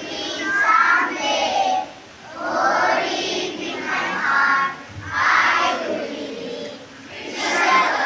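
Children's voices singing a song in phrases of a couple of seconds each, with short breaks between the phrases.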